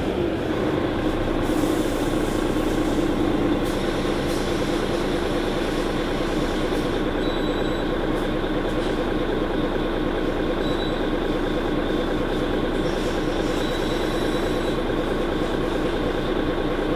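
Mercedes-Benz Citaro C2 G articulated bus with a ZF Ecolife automatic gearbox under way, its diesel engine and drivetrain running steadily.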